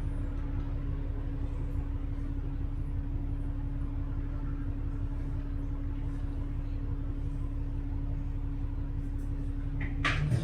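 A bus running along the road, heard from inside: a steady low engine and road rumble with a constant hum. A short sharp click comes near the end.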